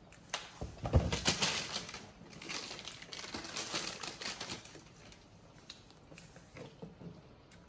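Baby monkey biting and chewing on a frozen red ice pop: irregular crunching and clicking, loudest about a second in.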